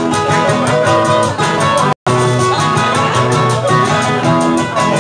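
Merengue played live on acoustic guitars, an instrumental passage with plucked notes over a steady rhythm; the sound cuts out for an instant about two seconds in.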